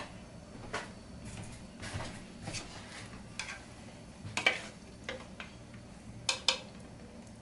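A serving spoon clinking and scraping against a stainless steel pot of stewed red kidney beans, in scattered light knocks, with sharper clanks about four and a half and six and a half seconds in.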